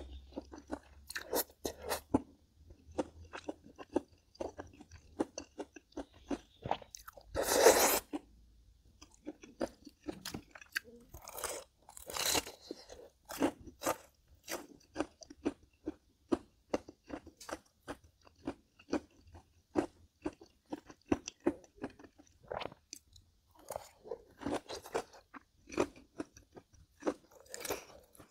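A person chewing and crunching crisp food close to the microphone, bite after bite at an irregular pace, with a louder, longer crunch just before 8 seconds in and another around 12 seconds in.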